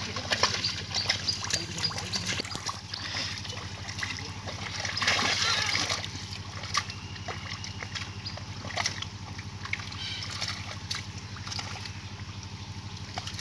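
Muddy water splashing and sloshing as hands and legs move through shallow mud, with many small sharp splashes and a louder stretch of splashing about five seconds in.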